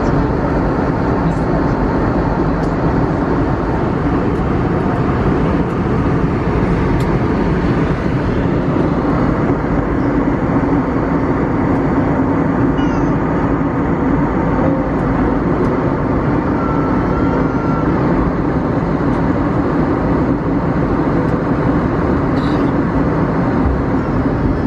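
Steady cabin drone inside an Airbus A320neo in flight: the even rush of engines and airflow heard through the fuselage.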